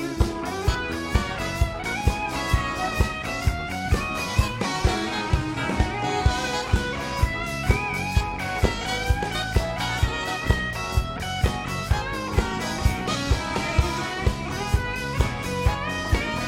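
Live band playing an instrumental break: a guitar solo carries the melody over a steady drum beat of about two beats a second.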